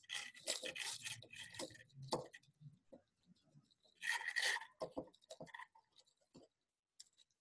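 Ribbon rustling and rubbing against a spray bottle as it is wound and tied around the bottle's neck: a run of scratchy handling noises in the first two seconds, another spell about four seconds in, then a few light ticks.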